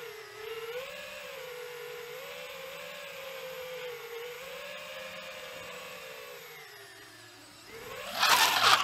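Quadcopter drone's propellers whining, the pitch wavering up and down as the motors fight a gusty crosswind. Near the end a loud rush of noise swells up.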